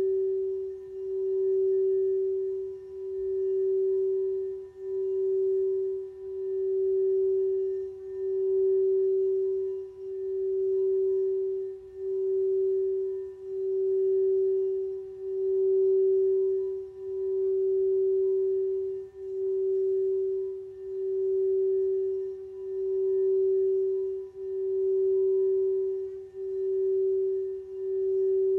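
Singing bowl sounding one sustained ringing note that swells and fades in a slow regular pulse, about once every second and a half to two seconds.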